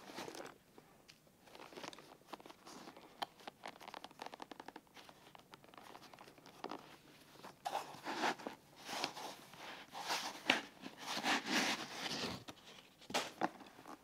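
Hands handling and opening a Satchel & Page Founder leather briefcase: leather and lining rustling and rubbing, with many small clicks, growing into a louder stretch of rubbing in the second half and a short burst near the end.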